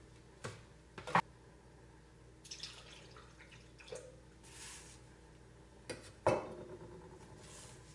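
Kitchen handling sounds while ingredients go into a blender jar for a smoothie: sharp knocks of containers set down and handled, with short spells of pouring between them. The loudest knock comes about six seconds in and rings briefly.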